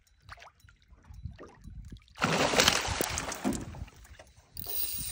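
A hooked big pike thrashing and splashing at the water's surface, a loud rough burst about two seconds in that lasts over a second. A steady hiss comes in near the end.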